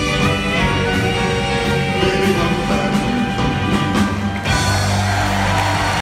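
Live doo-wop song played by a vocal group with a full backing band: keyboard, drums, electric and bass guitar and saxophone. The sound grows brighter and noisier from about four and a half seconds in.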